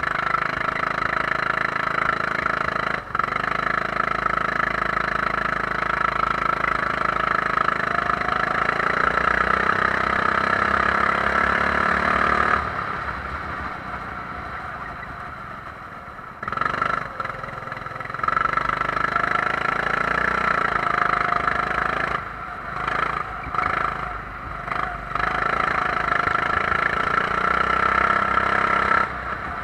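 Kart engine heard onboard, pulling hard with its note climbing steadily along a straight. About twelve seconds in it drops sharply as the throttle is lifted for a corner, then comes back on in short bursts and pulls hard again. Several quick throttle lifts follow before a last long pull and a final lift near the end.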